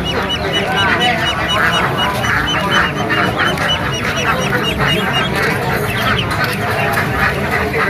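A crowd of young ducklings calling together in a dense, unbroken chorus of quacks and high peeping calls. One high peep repeats several times a second above the rest.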